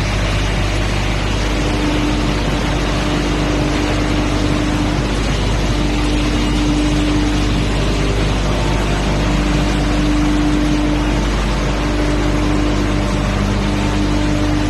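Wood sawdust hammer mill running: a steady, loud mechanical roar with a deep hum and a humming tone that comes and goes every second or two.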